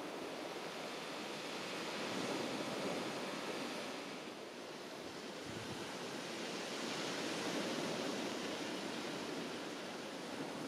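Sea surf washing onto the beach, a steady rush of waves that swells and eases, with some wind.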